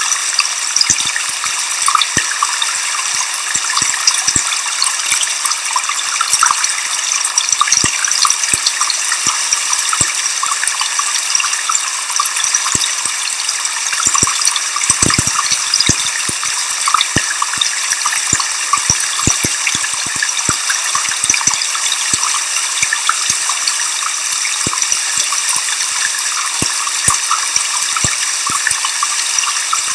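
Waterfall pouring steadily: a constant high-pitched hiss of falling water, with many scattered sharp splashes and drips.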